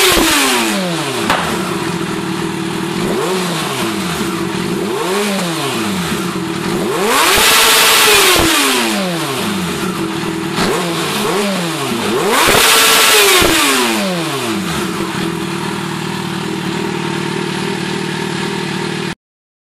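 A 2004 Yamaha FZ6N's 600 cc inline-four idles through its reworked stock underseat muffler and modified catalytic converter. The throttle is blipped repeatedly, each rev rising and falling back to idle. Two of the revs are longer and louder, about eight and thirteen seconds in.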